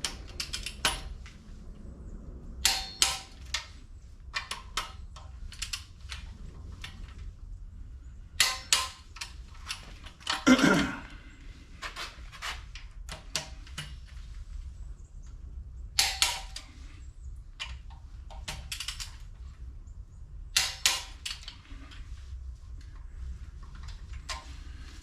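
Torque wrench ratcheting and clicking in short irregular bursts as bolts are tightened to 50 pound-feet, with one louder metal clank about ten seconds in.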